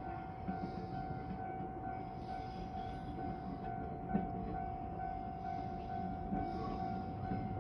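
A train running by: a low rumble with a steady whine held over it.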